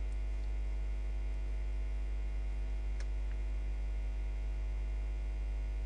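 Steady electrical mains hum: a strong low hum with a buzzy stack of evenly spaced overtones above it. One faint click about three seconds in.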